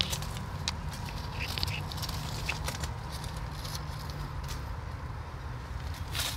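Dry grass mulch and dead oleander leaves rustling and crackling in short, scattered scratches as a hand clears them away from the cut stumps, over a steady low rumble.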